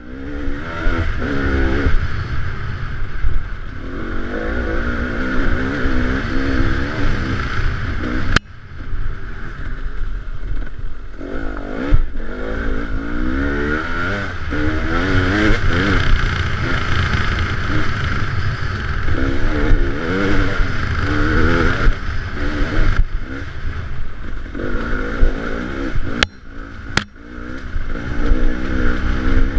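Off-road vehicle engine revving up and down as it climbs and slows over a dirt trail, with heavy low rumble and wind on the microphone. The sound breaks off abruptly several times, around 8 s, 12 s and 26–27 s in.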